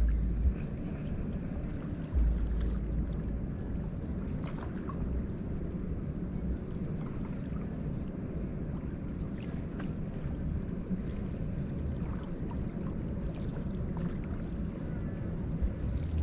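River waves washing and lapping in a steady wash, with wind gusting on the microphone as low rumbles, strongest about two seconds in.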